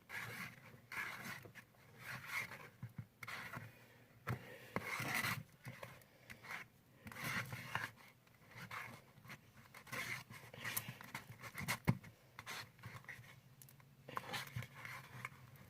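Slime mixture of glue and activator being stirred slowly in a bowl: quiet, irregular scraping and rubbing with a few sharp clicks.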